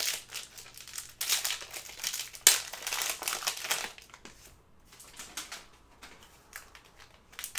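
Plastic wrapper of a trading-card pack crinkling as it is handled and opened, in irregular bursts with one sharp crackle about two and a half seconds in, then fainter crackles from about four seconds on.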